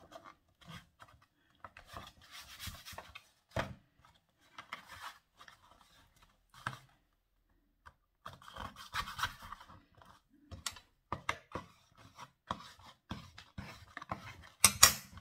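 Kraft cardstock and cardboard boxes being handled and pressed together: paper rubbing and scraping with scattered light taps, and a sharper knock just before the end.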